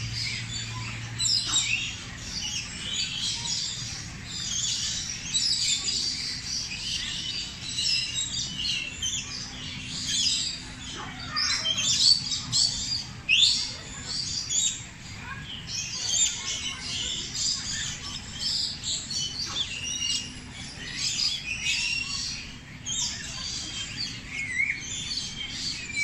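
Many birds chirping and calling over one another in a dense chorus of short high chirps and quick whistles, with no let-up.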